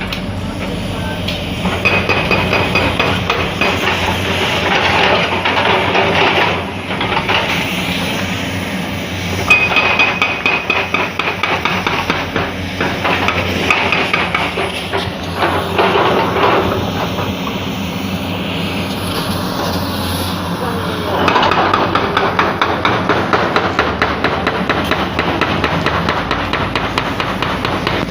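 Demolition backhoes breaking up concrete houses: rapid, continuous pounding and clatter of concrete and steel over the low running of heavy machinery, with brief high metallic rings about two seconds in and again near ten seconds.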